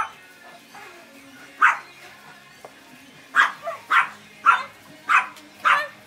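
Large dog barking in play, demanding a rope toy held out of its reach: one sharp bark, then after a pause a quick run of six more, about two a second.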